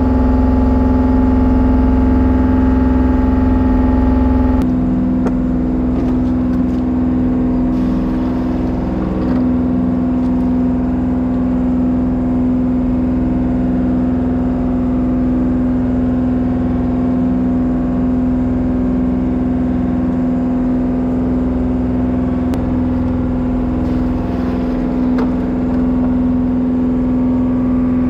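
Fishing boat's engine running at a steady speed, a constant drone that shifts slightly in tone about four and a half seconds in, with light knocks now and then.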